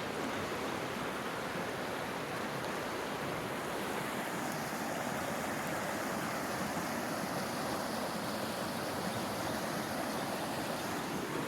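Creek water running steadily, an even rushing noise.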